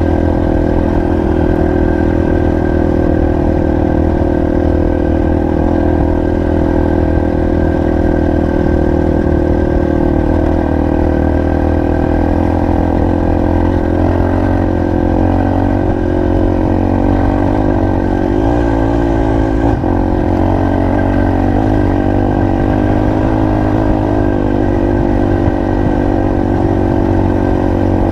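Single-cylinder four-stroke enduro motorcycle engine running steadily under way, with a few brief rises and dips in engine speed around two-thirds of the way through.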